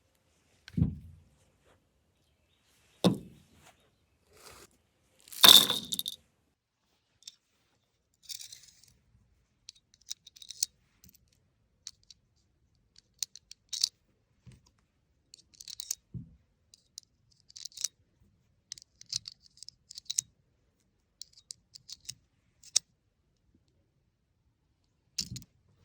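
Metallic clacks and clicks of a Ruger Mark II .22 pistol being handled: three sharp knocks in the first six seconds, the third the loudest, then many small scattered clicks and rattles.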